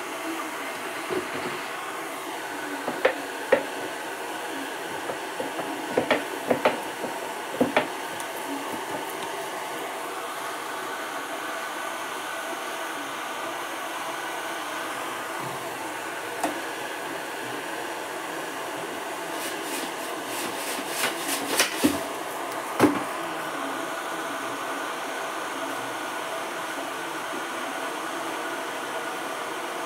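A steady hum runs throughout, with scattered light knocks and taps as rice-dough balls are set onto a banana leaf inside an aluminium steamer pot. A quick run of clicks and crackles comes about 20 to 23 seconds in.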